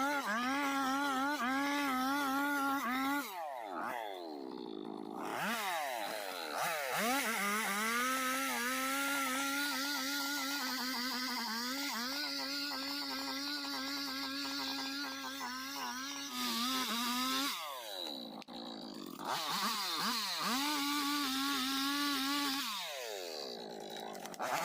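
Chainsaw engine running at high revs. Three times the throttle is let off, and each time the pitch sinks and then climbs back as it is opened again: about three seconds in, past the middle, and near the end.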